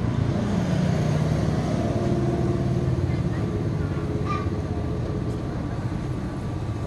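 Street traffic going past, with engine noise loudest in the first couple of seconds and faint voices in the background.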